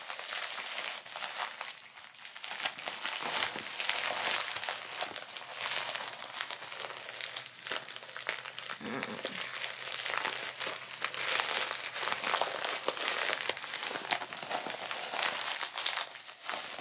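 White plastic poly mailer handled and crumpled by hand as it is picked and pulled open, a busy, continuous crinkling and crackling of thin plastic.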